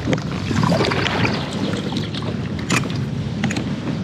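Kayak paddle strokes splashing through the water, with water running off the blades, and a few sharp knocks in the second half.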